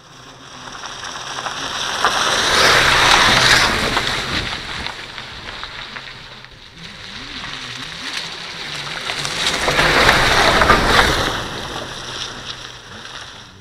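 A vehicle rolling slowly over a gravel road right past a microphone at ground level: tyres crunching on gravel. It swells up twice, loudest about three seconds in and again about ten seconds in.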